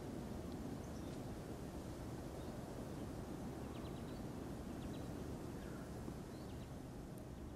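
Outdoor ambience: a steady low rumble, with faint short bird chirps in small clusters from about the middle on.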